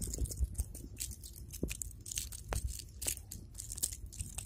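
Irregular crunching and crackling clicks as a freshly landed small fish is grabbed and handled, over a steady low rumble.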